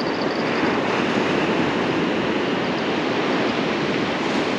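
Surf breaking and washing up a sandy beach: a steady rushing noise.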